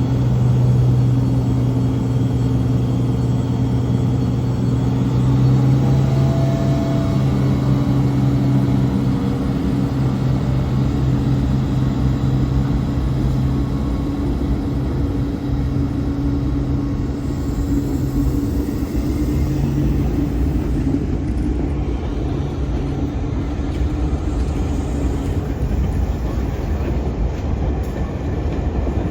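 DD200 diesel-electric locomotive's engine running with a steady low hum. In the second half a broad low rumble builds as the train gets under way.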